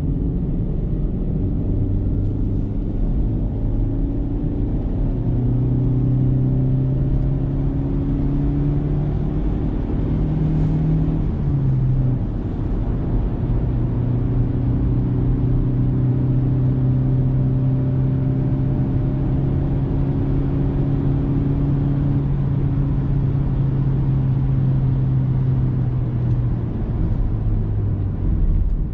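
Car engine droning steadily while driving, over road rumble, just after a carbon-cleaning treatment and described as really smooth running. Its pitch rises briefly about ten seconds in, drops a second or two later, then holds steady.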